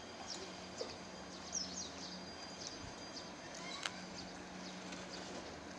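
Small birds chirping, many short high calls in quick succession, over a steady low hum.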